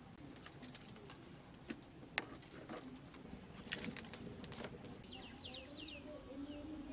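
Faint outdoor ambience: a bird gives a quick run of four or five short falling chirps about five seconds in, and a dove coos softly. Scattered light crackles come from the wood fire in the clay stove.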